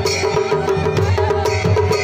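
Traditional Kumaoni wedding band music: dhol drumming and clashing brass hand cymbals in a fast, even beat, with a sustained tone running over it.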